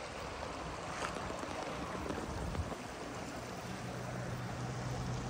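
Shallow stream running over rocks and gravel, a steady rush of water.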